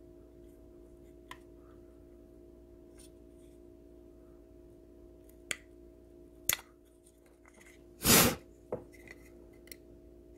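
Small clicks and handling noises of an EEPROM test clip and its leads being reseated on a chip, over a steady low electrical hum. About eight seconds in there is a louder, short rasping scrape, followed by a single click.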